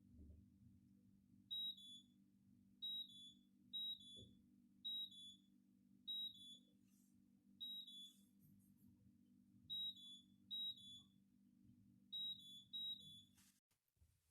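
Dishwasher control-panel beeps as its buttons are pressed to change the settings: about ten short, high two-note beeps at irregular intervals. A low steady hum runs beneath them and stops with a click near the end.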